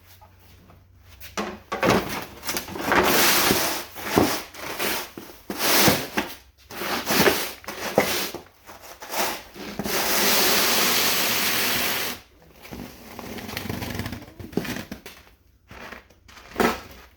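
Snow shovel scraping and crunching through fresh snow in a series of irregular strokes, with one longer, steady scrape about ten seconds in.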